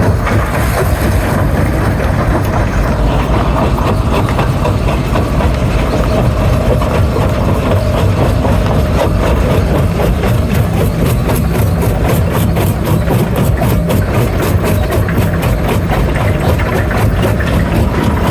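Stone crusher running steadily with a heavy, loud mechanical rumble, overlaid by rapid clattering knocks of rock being broken and tumbling through it, the clatter getting busier in the latter half.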